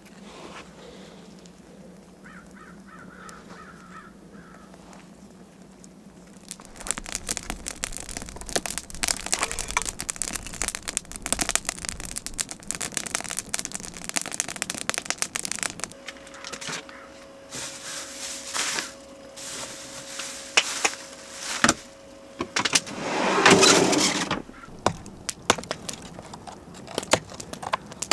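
Campfire of dry split kindling and shavings burning after being lit: quiet at first, then dense crackling and popping from about six seconds in, with a louder swell of crackle about three quarters of the way through.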